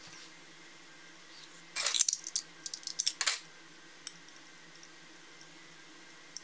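Metallic clicks and clatter from an opened hard drive's metal casing and parts being handled and turned over, with a burst of clattering about two seconds in, then a few light clicks.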